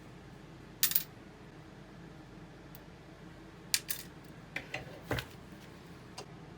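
Steel vise parts clinking and clacking against each other in a series of sharp clicks and clanks, the loudest pair about a second in, as a vise jaw is handled and test-fitted.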